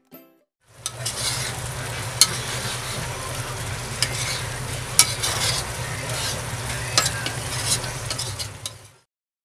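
Ginataang laing, taro leaves in coconut milk, simmering in a pan: a steady sizzling hiss with a few sharp pops, over a low hum. It cuts off shortly before the end.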